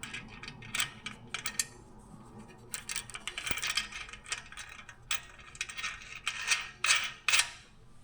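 Metal hardware and hand tools being handled while mounting a trailer winch: scattered sharp clinks and clicks, coming in small clusters, busiest around the middle and again near the end.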